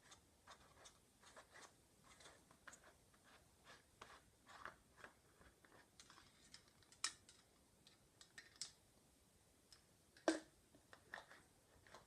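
Quiet ASMR tapping and clicking on small objects: an irregular run of soft taps with a few sharper clicks, the loudest about ten seconds in.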